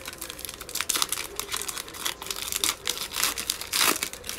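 Foil wrapper of a Mosaic football card pack crinkling and tearing as it is opened by hand: a dense, rapid crackle, with a longer, louder tear near the end.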